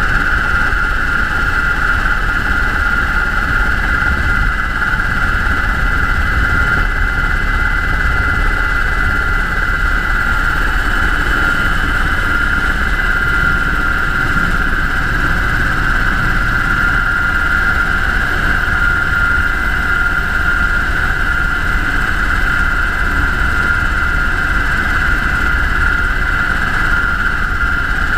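UH-60 Black Hawk helicopter running steadily: a loud, constant high-pitched whine over a low rumble, unchanging throughout.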